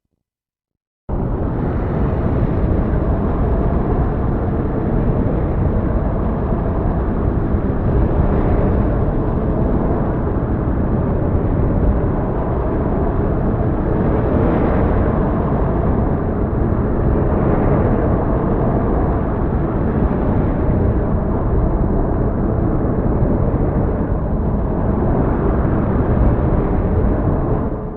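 Heavy storm ambience: a dense, steady wash of noise with a strong low rumble, starting abruptly about a second in and fading out near the end.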